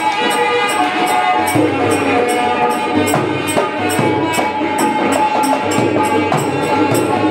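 Instrumental Indian devotional kirtan music: an electronic keyboard playing held, organ-like notes, with jingling percussion at about three beats a second and a dholak drum coming in about a second and a half in.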